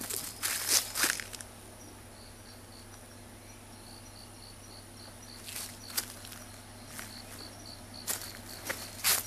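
Footsteps crunching on dry leaf litter, with a pause of a few seconds in the middle. Under the steps an insect chirps in an even pulse of about three short high notes a second, and a faint steady high trill sounds during the pause.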